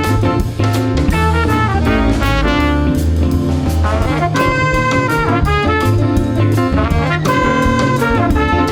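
Live jazz band playing: saxophone and trumpet phrases over drum kit and bass.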